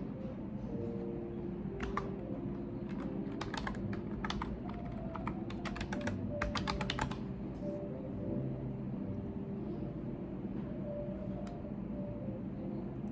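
Typing on a computer keyboard: a quick run of key clicks between about two and seven seconds in, then only a few scattered keystrokes, over a steady low background hum.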